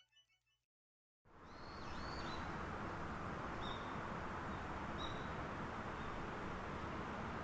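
Tail of intro music fading out, a second of silence, then steady outdoor ambient noise fades in, with a few faint, short bird chirps.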